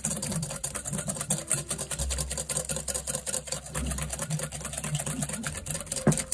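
Wire whisk beating egg yolks in a glass bowl: quick, steady clicking and scraping of the wires against the glass, many strokes a second, with one sharper knock near the end.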